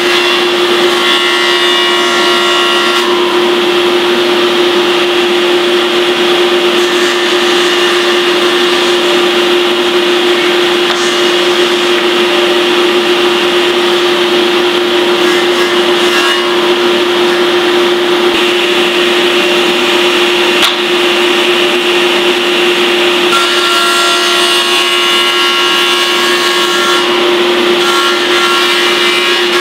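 Table saw running steadily with a strong hum, its blade cutting a shallow groove across a wooden chair-seat blank as it is pushed over a jig, scooping out the seat's saddle.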